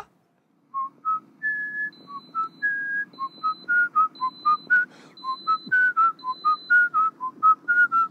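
A man whistling a lively tune in short, quick notes.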